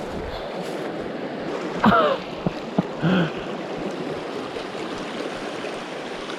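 River current rushing steadily over riffles. A brief falling call about two seconds in, then a short low sound about a second later, rise above it.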